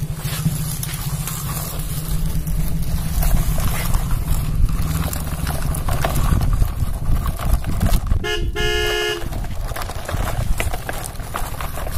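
Plastic toy tractor-trailer carrying a toy road roller, dragged on a string over gravel: its wheels roll and crunch over small stones, with many small clicks over a low rumble. About eight seconds in, a short horn toots.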